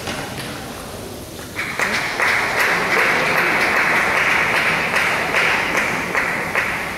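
Spectators applauding at the end of a table tennis point. The applause breaks out about a second and a half in, holds steady and stops near the end. A few sharp knocks of the rally come before it.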